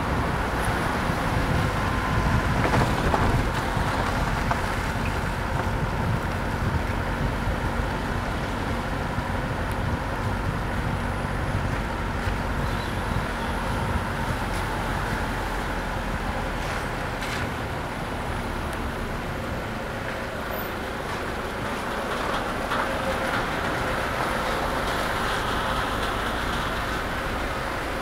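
Car driving along a road, heard from inside the cabin: a steady rumble of engine and tyre noise.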